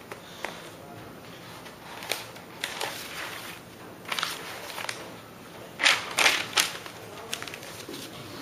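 Paper rustling and crackling as sheets of notes are handled, in short scattered bursts with the sharpest cluster about six seconds in.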